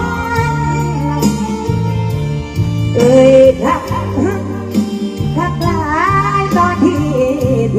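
A woman singing a Thai luk thung song into a microphone through the stage PA, with band accompaniment and a steady bass line under the vocal melody.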